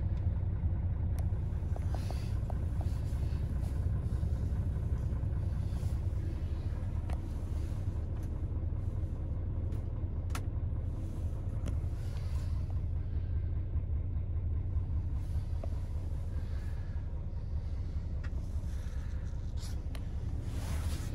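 Scania S450's 13-litre straight-six diesel idling steadily in neutral, a low, even rumble heard from inside the cab, with a few light clicks.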